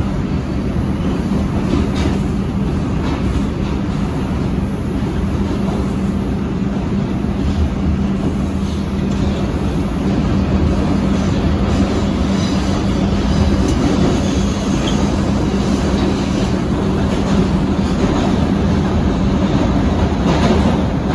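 Bombardier R142 subway car running through the tunnel, heard from inside the car: a steady loud rumble of wheels on rail with a constant low hum and a few brief clicks.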